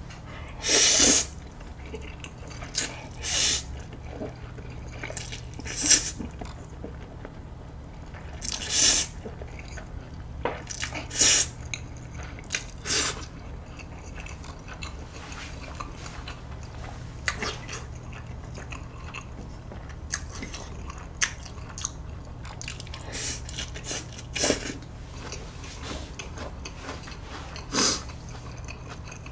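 Buldak spicy stir-fried instant noodles being slurped and chewed close to the microphone: a string of short, sharp slurps, the loudest in the first dozen seconds, with quieter chewing between. A steady low hum runs underneath.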